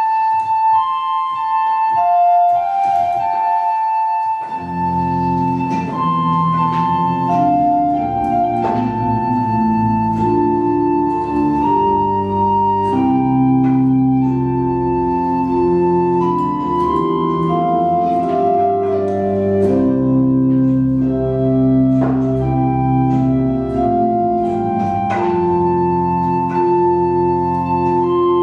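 Organ playing a hymn tune in held notes. The melody sounds alone for the first few seconds, then full harmony with a bass line joins about four and a half seconds in.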